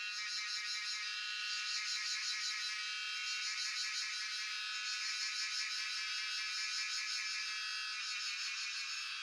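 Cicadas singing in a continuous chorus: a steady, shrill, fast-pulsing buzz made of several high tones at once, easing off a little near the end.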